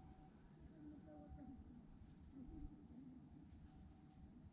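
Faint, steady high-pitched chirring of crickets or other singing insects, unbroken throughout.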